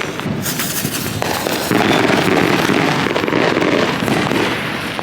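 Backyard consumer fireworks going off: a dense, continuous crackling with rapid pops, louder from about two seconds in.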